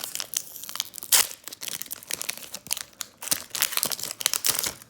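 Foil wrapper of a Pokémon TCG booster pack crinkling and tearing as it is opened by hand: a dense run of sharp crackles, loudest about a second in.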